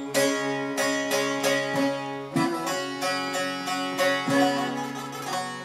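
Bağlama (long-necked Turkish saz) played solo with a plectrum: an instrumental passage of quick, rhythmic picked strokes over ringing drone strings, between sung verses of a Turkish folk song.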